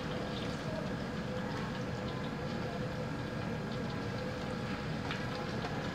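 Steady rushing of a gas wok burner's flame, with hot oil sizzling in the wok. Faint scattered ticks come as fish balls and fish cake slices are dropped into the oil.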